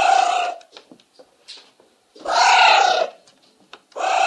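Anteater calls: three loud, harsh calls about a second long each, with short gaps between them and a slight fall in pitch across each call.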